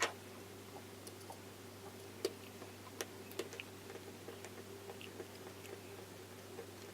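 Small scattered clicks and taps of a precision screwdriver and a tiny screw against a phone's frame during reassembly, over a steady low hum.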